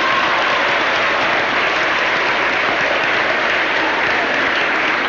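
An audience applauding in a steady round of clapping.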